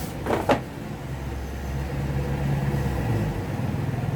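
A motor vehicle's engine running with a low rumble that swells and then drops away about three seconds in, with two sharp knocks near the start.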